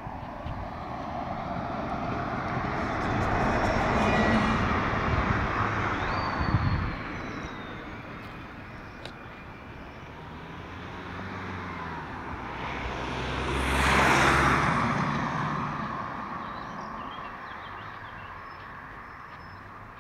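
Road vehicles driving past one after another, each rising and then fading away. The first pass is longer, around the first third. The second is louder and quicker, passing close about two-thirds of the way in.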